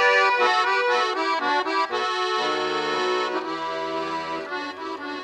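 Accordion playing an instrumental interlude between the sung verses of a folk song: a melody over held chords, with lower bass notes coming in about halfway through.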